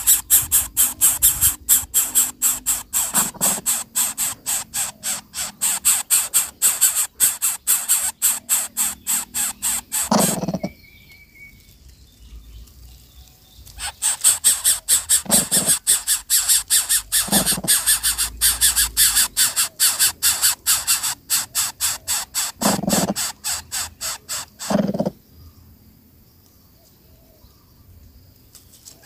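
Greater coucal nestling begging: a rapid, even train of raspy hissing calls, several a second. It stops about ten seconds in, starts again a few seconds later and stops again near the end.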